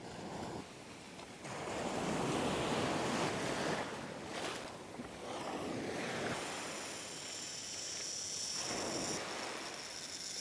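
Ocean surf breaking and washing up the sand, with wind buffeting the microphone; the waves are loudest early on. A steady high whine joins in a little past halfway.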